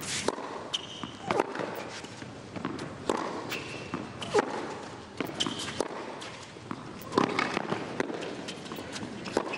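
Tennis rally on a hard court: sharp racket strikes on the ball alternating with ball bounces, about one impact every second or so.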